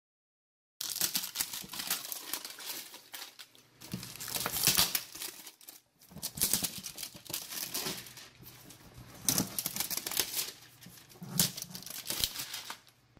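Clear plastic wrap on a cardboard box crinkling and tearing as hands pull it off, in irregular bursts that begin about a second in and stop just before the end.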